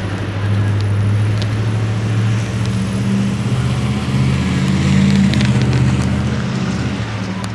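Motor vehicle engine running, a steady low hum whose pitch shifts slightly a few times before it fades near the end.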